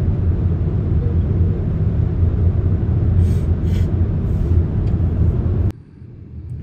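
Road and tyre noise in the cabin of a Haval H6 HEV cruising at motorway speed, a steady low rumble. Near the end it cuts off suddenly to a much quieter cabin sound at low speed.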